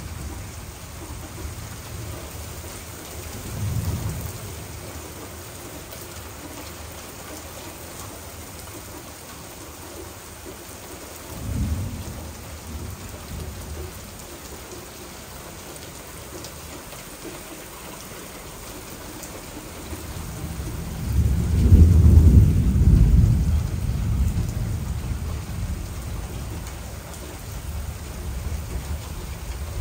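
Steady heavy rain with thunder. There are two short low rumbles early on and a third of the way in, then a longer, louder roll of thunder past the middle that fades away slowly.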